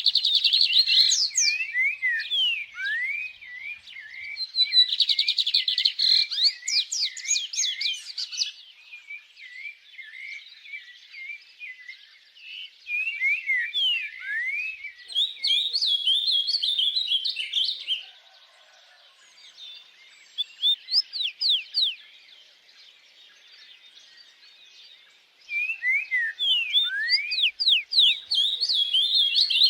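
Small songbirds singing: quick series of high chirps and trills in bouts, with a lull of several seconds past the middle before the song picks up again.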